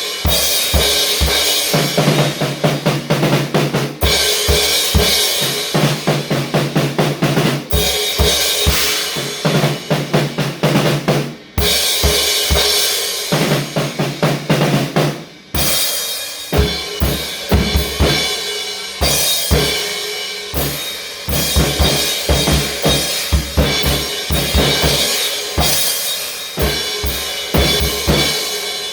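Drum kit with bass drum, snare and rimshots playing a busy, steady beat over music, with two short breaks about eleven and fifteen seconds in.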